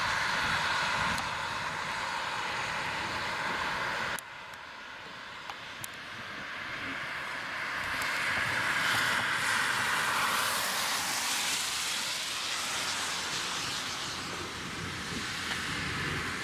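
Cars passing on a road, a steady rush of tyre noise on the asphalt. It drops off suddenly about four seconds in, then swells as another car goes by around ten seconds in and fades again.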